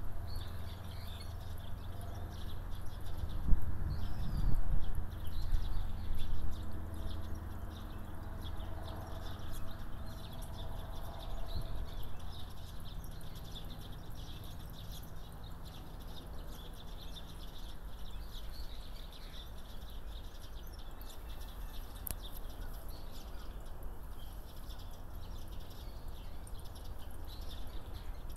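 Outdoor ambience: small birds chirping faintly over a steady low hum, with a few louder knocks and rustles about four to six seconds in.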